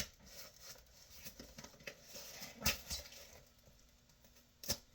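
Hands working open a shipping box and its packing: irregular scratching and rustling of cardboard and packing material, with a few sharp clicks, one sharper than the rest about two and a half seconds in.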